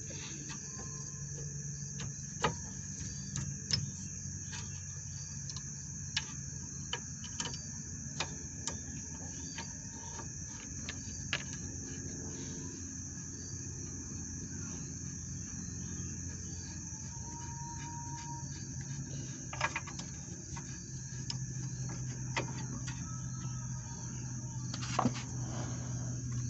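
Crickets chirping steadily, with about a dozen scattered sharp clicks and knocks, such as tools working on the brake. A low steady hum runs underneath and gets stronger about two-thirds of the way in.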